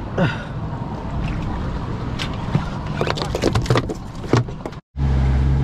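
Bluefish being gaffed and hauled aboard a fishing boat: a run of sharp knocks and slaps over wind and water noise. Shortly before the end it cuts to the steady low drone of the boat's engine running underway.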